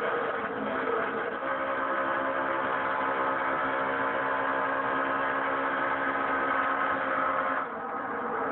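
NASCAR Nationwide Series stock car V8 engine running at steady, unchanging revs; the sound drops away suddenly near the end.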